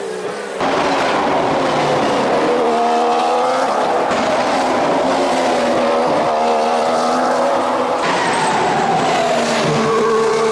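The 1.6-litre turbocharged V6 engine of a 2014 Formula One car at racing speed, its pitch repeatedly climbing and dropping through gear changes, with a falling note near the end. The sound jumps abruptly to a new shot just over half a second in.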